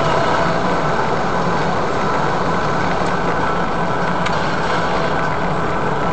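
Steady engine and road noise inside a Toyota MR2's cabin while it drives along at an even speed.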